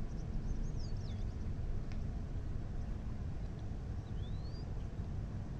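Outdoor ambience: a steady low rumble, with a few faint high bird whistles, one about a second in and a rising one near the end, and a single light click about two seconds in.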